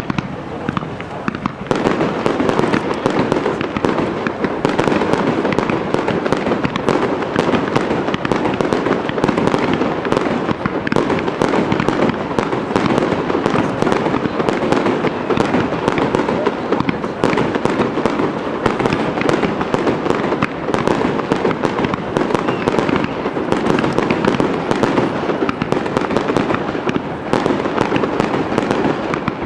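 Japanese aerial fireworks display: a dense, continuous barrage of shells bursting and crackling, with many sharp cracks a second, getting louder about two seconds in.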